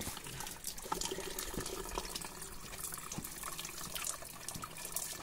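Spring water running from a pipe in a rock face into a plastic bottle as it fills: a steady trickle with small splashes.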